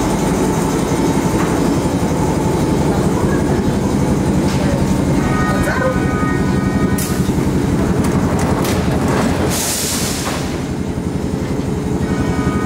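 Milan Metro line M3 train running through the tunnel, heard from inside the carriage: a loud, steady rumble with fast rail clatter, a short high tone about halfway and a brief hiss about ten seconds in.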